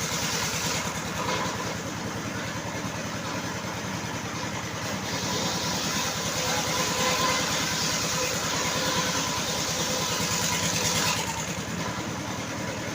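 Engine-driven circular sawmill running, the engine firing steadily. The noise grows louder and brighter from about five to about eleven seconds in, then drops back.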